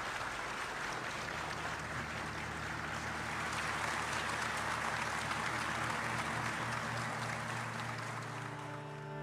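Large audience applauding steadily, a dense continuous clapping that eases slightly near the end.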